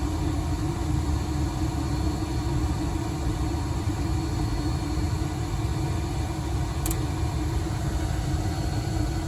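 Heil gas furnace running with its burners lit, a steady rumble with a low hum; the flame is holding now that the failed control board has been replaced.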